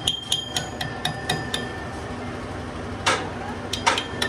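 Metal-on-metal taps and clinks, steel parts struck so that each hit leaves a short ringing tone. There is a quick run of taps at first, then a louder hit a little after the middle and more taps near the end.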